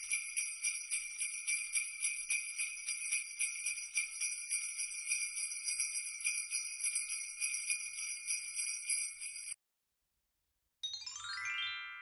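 Jingle bells shaken rapidly and steadily, stopping abruptly after about nine and a half seconds. After a short silence, a quick descending run of bright ringing notes starts and fades out near the end.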